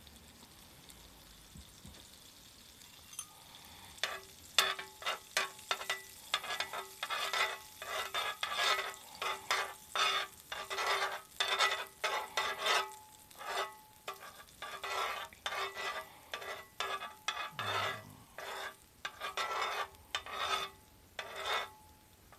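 A metal utensil scraping back and forth across an electric hot plate's nonstick pan, spreading melting butter, which sizzles. The strokes start about four seconds in and come about two a second, each with a faint ring from the pan.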